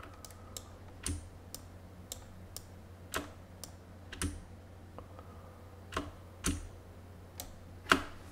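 Irregular clicks of a computer mouse and keyboard: about a dozen sharp clicks at uneven spacing, a few of them louder than the rest, over a low steady hum.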